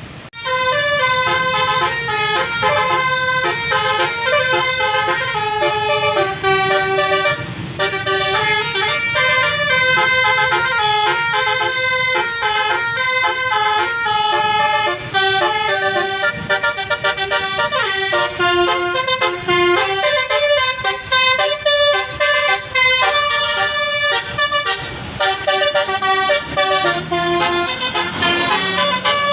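A bus's telolet basuri musical air horn plays a long, fast-changing melody, several horn tones sounding together in stepped notes, with a low rumble underneath. It starts abruptly just after the beginning.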